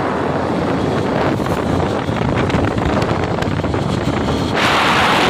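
Wind rushing over the microphone of a motorcycle moving at road speed, mixed with the bike's engine and tyre noise. A louder gust of hiss comes near the end.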